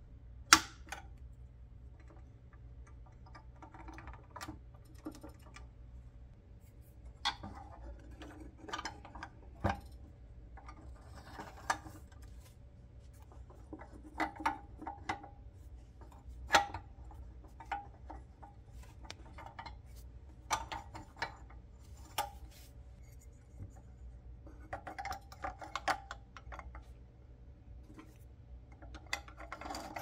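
Irregular sharp clicks, taps and clinks of hand reassembly on a pressed-steel toy bulldozer: plastic rollers and wheels pushed onto the steel frame and a metal axle rod slid through, the loudest click just after the start. A steady low hum runs underneath.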